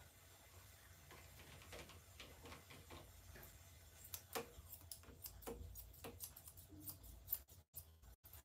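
Grooming scissors snipping through a Persian cat's long fur: faint, quick snips, coming thicker and sharper from about four seconds in.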